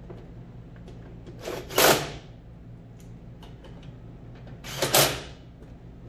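Cordless drill-driver running in two short bursts about three seconds apart, driving screws into the washer's control console. Small clicks and handling noises fall between the bursts.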